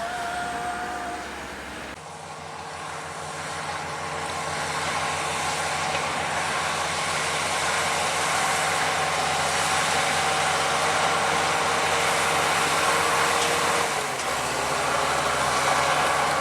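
Heavy construction machine's diesel engine running steadily, growing louder over the first few seconds. The engine sound changes abruptly about two seconds in and again near the end.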